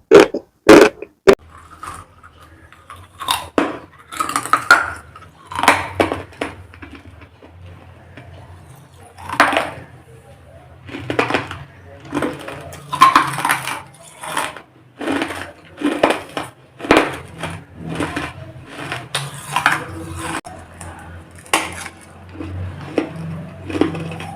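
Hard baked clay crunching and crackling in irregular bursts, each a second or so apart, with a few very loud crunches at the start. A low steady hum runs underneath.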